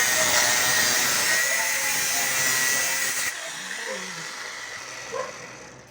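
A small high-pitched motor whining steadily with a strong hiss, which cuts off abruptly about three seconds in, followed by fainter, scattered sounds.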